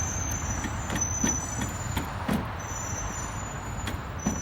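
A few short clicks and knocks from hand tools working on a car's brake caliper bolts, over a steady low outdoor rumble and a faint high steady tone.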